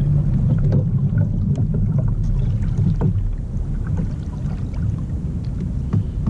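Wind rumbling on the microphone and water lapping against a kayak, with scattered light clicks and knocks from gear on board.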